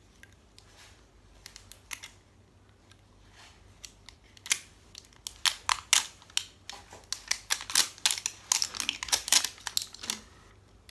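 Wrapping being peeled and unwound off an L.O.L. Surprise toy ball, crackling and crinkling in quick, uneven clicks. A few faint rustles give way, about four seconds in, to several seconds of dense crackling that stops shortly before the end.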